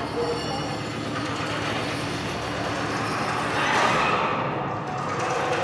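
Immersive media-art soundtrack playing through the hall's speakers: a dense, rumbling electronic drone that swells about four seconds in, after which its hiss drops away for a moment.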